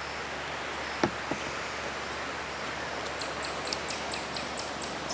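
Steady hiss of a kayak gliding through floodwater, with two light knocks about a second in. Over the last two seconds comes a quick run of short high chirps, about four a second.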